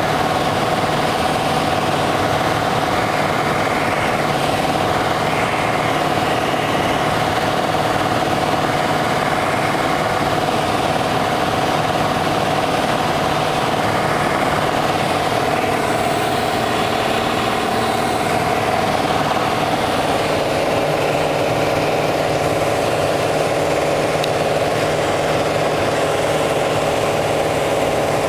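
Piper Arrow's piston engine and propeller droning steadily as heard inside the cockpit in flight, with a steady rush of air noise. About two-thirds of the way through, the engine's pitch drops slightly and holds.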